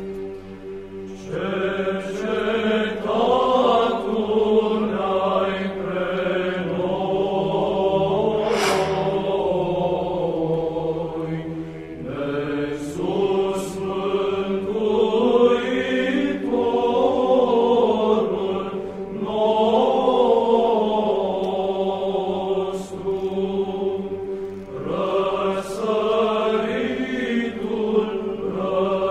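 Eastern Orthodox church chant: a sung melodic line that rises and falls over a steady held drone note.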